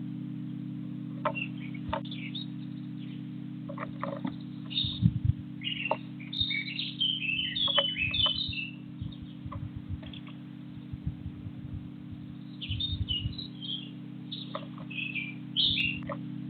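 Small birds chirping in quick clusters of short high notes, busiest a few seconds in and again near the end, with scattered light clicks and taps over a steady low hum.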